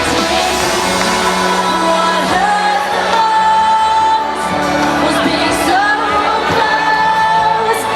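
Live dance-pop song with a female lead vocal over synths and bass, the singer holding one long note about three seconds in.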